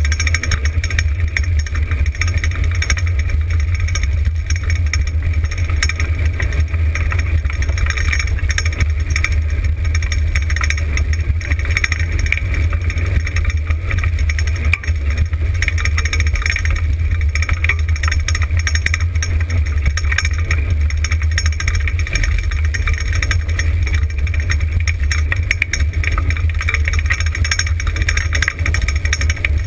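Steady rumble and hiss of a dryland dog-sled rig rolling over a dirt and gravel trail at about 23 km/h, with wind buffeting the rig-mounted microphone.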